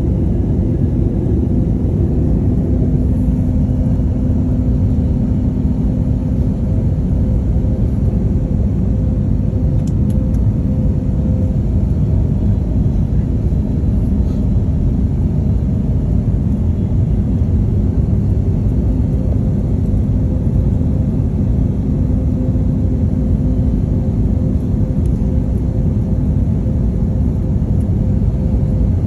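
Steady low rumble of a jet airliner in flight, its engines and airflow heard inside the passenger cabin, with a faint even hum under it.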